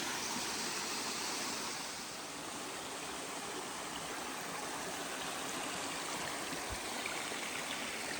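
Small waterfall on a mountain stream, water rushing and splashing over rocks in a steady wash, a little softer from about two seconds in.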